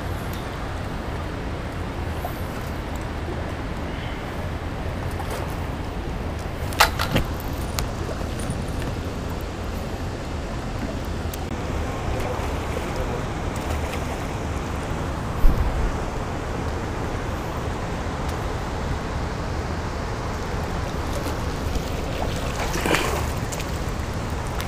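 Steady rushing noise of river water flowing past the bank, with a sharp click about seven seconds in and a dull knock about halfway through as a landing net is handled.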